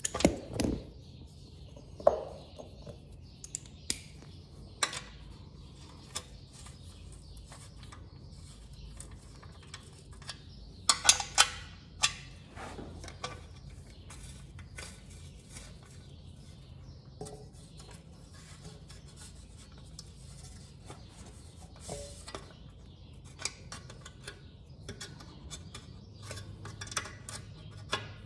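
Hand tools and hardware handled against a metal skid plate while a nut is threaded on and tightened with a 12 mm socket: scattered small metallic clicks, clinks and scrapes, with a cluster of sharper clinks about eleven seconds in.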